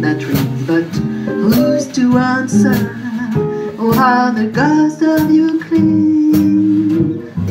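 Small acoustic band playing live: acoustic guitar strumming chords under a melody line, with a light steady beat, the melody ending in a long held note near the end.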